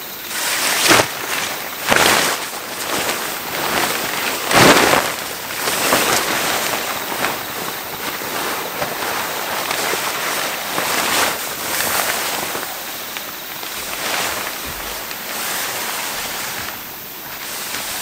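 A Kazumi New Trion tent's fly sheet rustling and flapping as it is thrown over the tent and caught by a headwind. There are sharp swishes about one, two and five seconds in, then steadier rustling.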